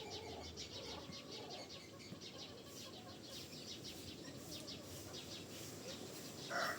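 Rapid high chirping, about five chirps a second. Near the end a rooster starts to crow loudly.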